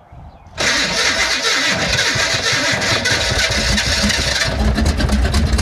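A car engine being cranked on the starter, starting suddenly about half a second in. Near the end it changes to a heavier, uneven low rumble as the engine tries to fire.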